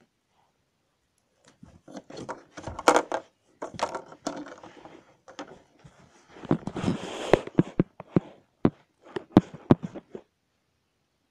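Handling noise from hard plastic toys close to the microphone: a run of clicks, taps and scraping for several seconds, ending about ten seconds in.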